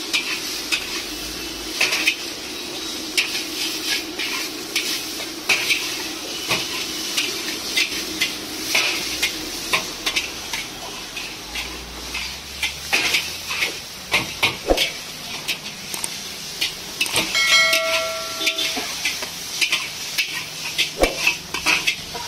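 Metal spatula clanking and scraping against a large iron wok as chowmein noodles are stir-fried, with a steady sizzle of frying underneath and frequent irregular clicks from the spatula striking the pan.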